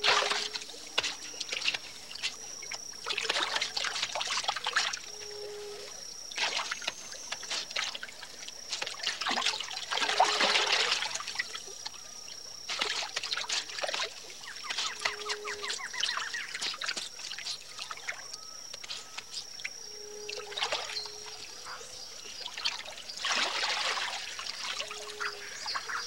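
Caiman splashing and thrashing in shallow water while snapping at fish, in about ten irregular bursts of splashing, with water dripping and trickling between them. A thin, high, steady tone runs in the background and breaks off now and then.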